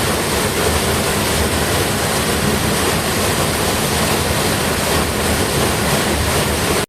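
Steady, loud rush of falling water from a mountain waterfall, which cuts off suddenly at the very end.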